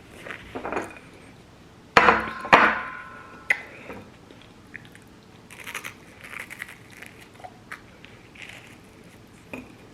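Dishes and cutlery clinking: two sharp knocks about two seconds in, the second leaving a short ringing tone, then a few lighter clicks.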